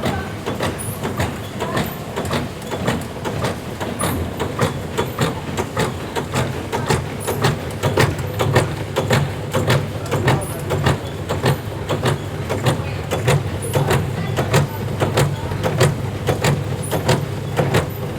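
Coffee packaging machine running: rhythmic mechanical clacking about three times a second over a steady low hum.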